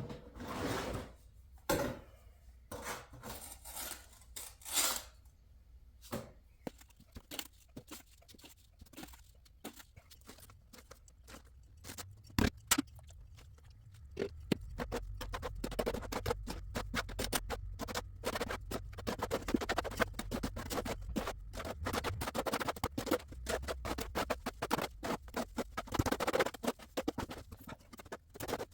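Irregular scraping and knocking of masonry tools working wet mortar, with a low rumble building from about halfway through.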